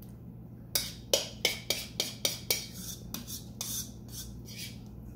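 Metal spoon scraping guacamole out of a ceramic bowl onto a plate. A quick run of about seven clinks comes in the first half, then softer scraping.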